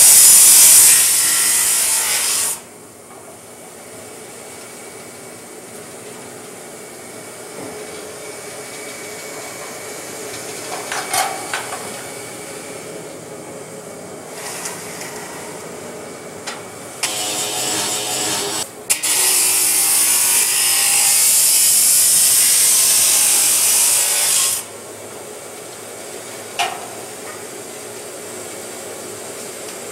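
Abrasive chop saw cutting 2x4 steel tubing to length: a loud, high grinding cut for the first couple of seconds, a short cut a little past halfway, and a longer loud cut lasting about six seconds. Between cuts the saw and its dust collection run more quietly.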